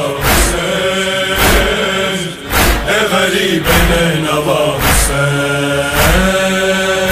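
A man chanting a Balti noha in long, drawn-out notes over a steady thudding beat that falls about once a second.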